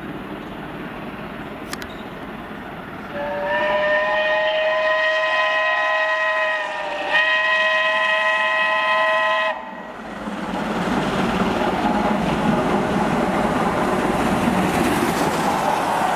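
BR Standard 'Britannia' class steam locomotive 70000 sounding its whistle in two long steady blasts, the second shorter, as it approaches. Then the locomotive and its coaches run past close by, the rolling noise of the train growing louder.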